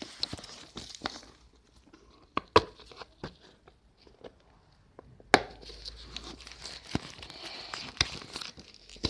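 Plastic wrapping being torn and crinkled off a camera box, with scattered sharp clicks and taps. Quieter in the middle, then steady crinkling from about halfway through.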